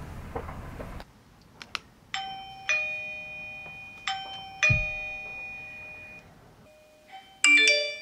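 Electronic doorbell chime of a Eufy battery video doorbell playing a two-note ding-dong twice, each note ringing on and fading. Near the end, a brief, louder burst of several electronic tones.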